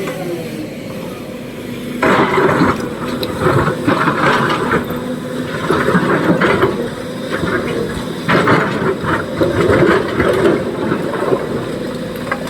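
Heavy diesel engine running steadily, with loud, irregular sounds coming and going from about two seconds in.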